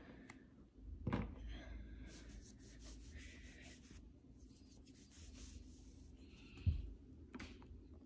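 Faint handling sounds: rubbing and scraping as a rubber cover is worked off an AirPods case, with a light knock about a second in and a dull thump late on.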